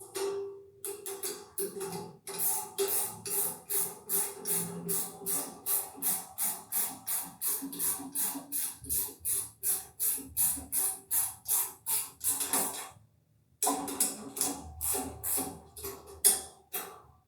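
Ratchet wrench clicking in quick, even strokes, about four a second, as a nut is run down on the antenna's feed mounting bracket. It stops briefly about thirteen seconds in, then carries on.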